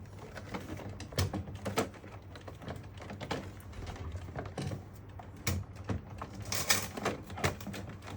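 Scattered, irregular light clicks and taps over a low steady hum.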